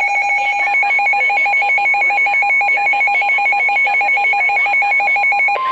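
A weather radio's electronic alert alarm: a loud, fast-warbling two-tone beep, about four or five warbles a second. About five and a half seconds in it cuts off and gives way to the steady, single-pitch 1050 Hz NOAA Weather Radio warning tone that signals a warning broadcast.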